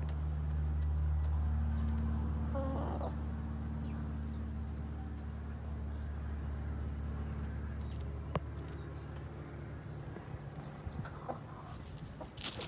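A chicken gives a brief cluck about three seconds in, over a steady low hum that slowly fades. Faint high chirps of small birds come and go, and there is a single sharp tap about eight seconds in.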